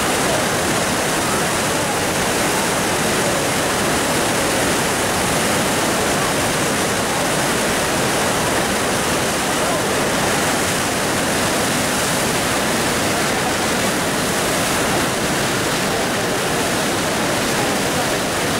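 Yangtze River in spate rushing through rapids: a loud, steady rush of churning white water.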